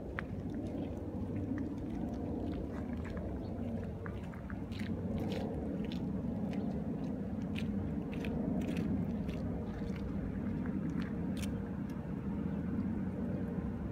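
Footsteps crunching in snow: irregular crackles over a steady low rumble.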